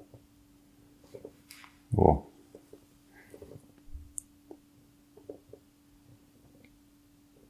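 Light clicks and rustles of gloved hands handling an airsoft hand grenade and its wire loop, with a short "oh" about two seconds in. A faint steady hum runs underneath.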